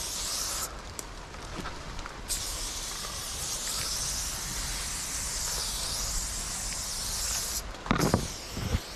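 Aerosol spray paint can hissing as paint is sprayed onto a wall: a short spray, a pause of about a second and a half, then a steady spray lasting about five seconds. A couple of brief handling noises near the end.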